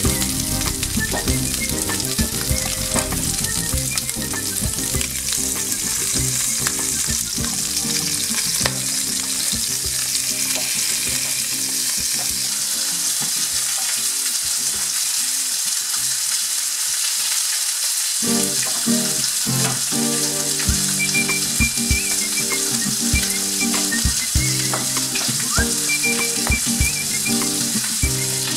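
Chicken thighs frying in oil in a nonstick pan: a steady sizzling hiss. Low background music plays beneath it and drops out for a few seconds midway.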